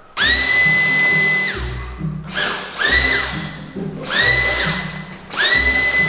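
Cordless stick vacuum switched on and off in short bursts, about four times. Each burst spins up quickly to a steady high whine and winds down when released.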